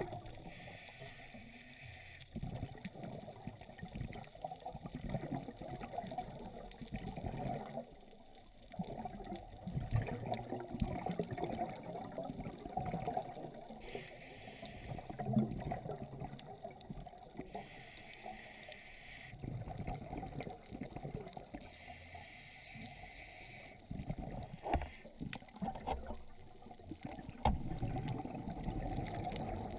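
Underwater sound picked up by a diver's camera: a steady muffled rush, broken four times by bubbly hissing from a scuba diver's exhaled breath.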